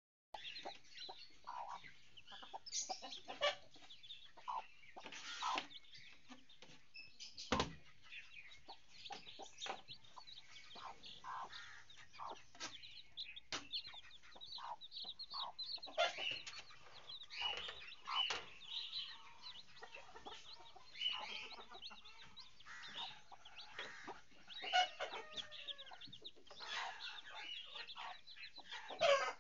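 Newly hatched chicks peeping, many short high chirps overlapping, with a mother hen's lower clucks among them. A single sharp knock about seven and a half seconds in.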